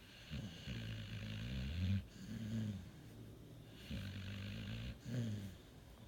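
Pit bull snoring in its sleep: four snores, each a second or less long, the loudest about two seconds in and near five seconds. The owner puts the snoring down to sleep apnea.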